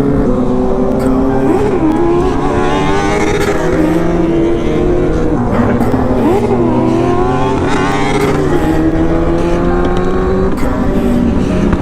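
Inline-four sport motorcycle engine running under way, holding a steady pitch with a couple of quick rises and falls in revs.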